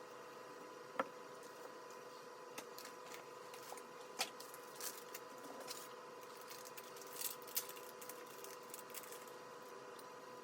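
Faint, scattered clicks and ticks of small tools and computer parts being handled, over a faint steady hum; the sharpest click comes about a second in, another about four seconds in, and a short cluster near the end.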